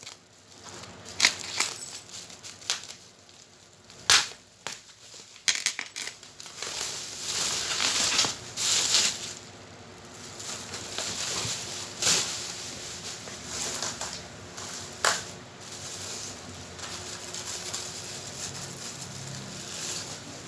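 Packaging being handled and pulled apart: irregular crinkling and crackling, with many sharp clicks and knocks in the first half and longer stretches of rustling later.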